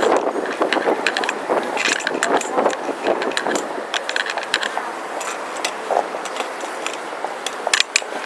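Busy street noise: a steady wash of traffic with many sharp clicks and rattles close to the microphone. No bell is ringing.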